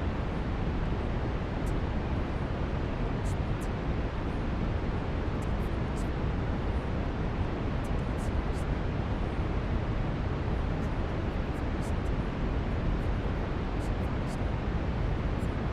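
Steady brown noise: an even, deep rushing hiss, strongest in the low end and falling away toward the top, unchanging throughout.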